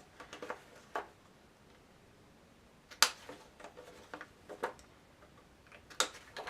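Paper corner-rounder punch clicking several times as the corners of a square of decorated paper are rounded. The sharpest clicks come about three and six seconds in, with softer clicks and paper handling between.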